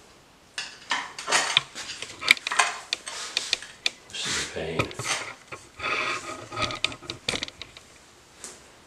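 A metal screwdriver scraping, clicking and tapping on ceramic floor tile in an irregular run of sharp clicks and scrapes, as a tile set in thinset is nudged into line.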